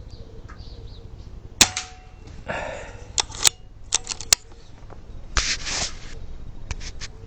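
Handling noise with several sharp clicks. The loudest click comes about a second and a half in, and two more come near three and a half and four and a half seconds. Between them are short stretches of rustling.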